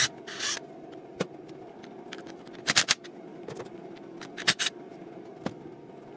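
Sharp metallic clicks and clinks, some in quick clusters of two or three, from tools and parts being handled as the timing advance of a CAV DPA diesel fuel injection pump is taken apart, with a short scrape near the start. A steady low hum lies underneath.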